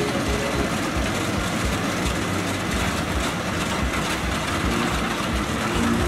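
Rice combine harvester running while cutting the crop: its engine and machinery make a steady din with a low rumble underneath.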